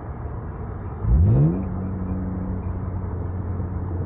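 BMW E36 328i straight-six running through an aftermarket Remus exhaust, heard from inside the cabin. About a second in, a quick throttle blip sends the revs sharply up for a downshift, and then the engine settles into a steady drone.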